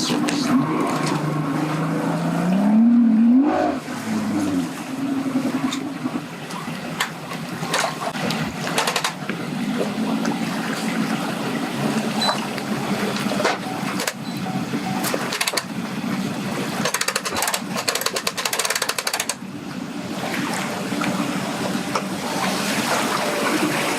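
A boat's motor running under load as the boat is power-loaded onto its trailer, revving up with a rising whine about three seconds in and then running on unevenly, with wind and splashing water around it.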